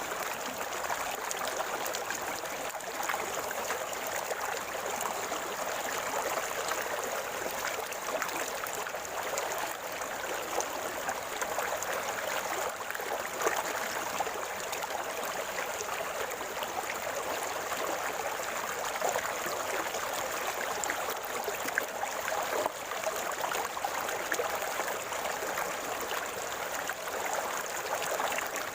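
River water flowing and gurgling over stones: a steady, even babble with fine splashes and bubbling throughout.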